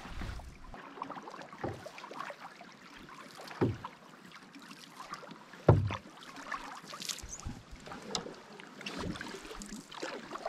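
A canoe being paddled: paddles dipping and water lapping against the hull, with a couple of sudden knocks, the loudest about six seconds in.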